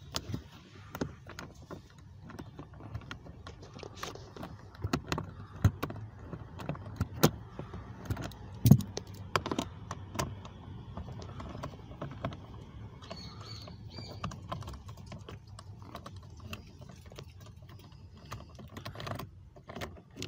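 Irregular light clicks and taps from a 5.5 mm nut driver turned by hand, backing out the screws of the cabin-filter cover under the glovebox, with a sharper knock a little under nine seconds in.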